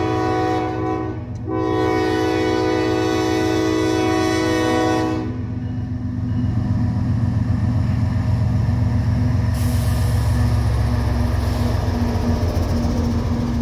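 A CSX freight diesel locomotive's air horn sounds a multi-note chord: a blast ending about a second in, then after a short break a long blast of about four seconds, as it signals for the grade crossing. The horn stops and the lead locomotive passes close by with a deep, steady engine rumble, joined a few seconds later by the rushing noise of its wheels on the rails.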